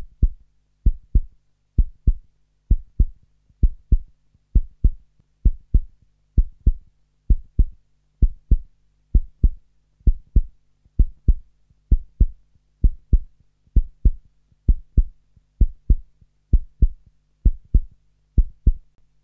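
Heartbeat sound: steady paired low thumps, lub-dub, about once a second.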